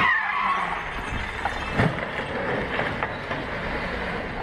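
Dashcam audio of a street car crash: road and engine noise, with one sharp impact bang about two seconds in and a few lighter knocks after it.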